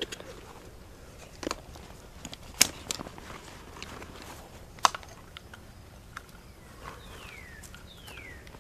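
Scattered sharp clicks and knocks of handling or movement, a few of them loud. Near the end come two short whistles, each falling in pitch.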